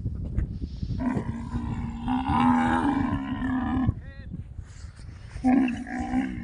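Dromedary camels mating: one of the pair gives a long, low call of about three seconds starting a second in, then a second, shorter call near the end, over a steady low rumble.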